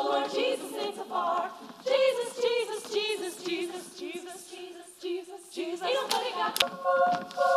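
Female choir singing a cappella, several voices together. Near the end there is a sharp click, then a held keyboard chord comes in.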